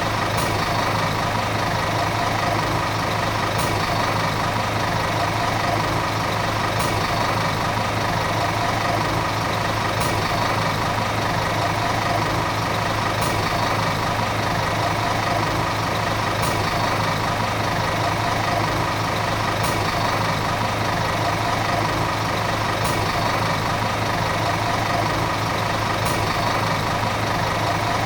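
Volvo city bus diesel engine running steadily, its note holding the same pitch throughout, with a faint tick about every three seconds.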